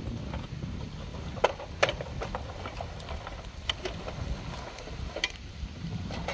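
A handful of sharp plastic clicks and knocks as toy dump trucks are handled and pushed together, the loudest two about a second and a half and two seconds in, over a steady low rumble of wind on the microphone.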